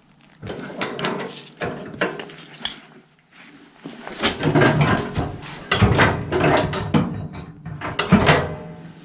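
Ratchet wrench clicking in quick back-and-forth runs as a bolt on the snowblower is snugged up, louder and busier in the second half.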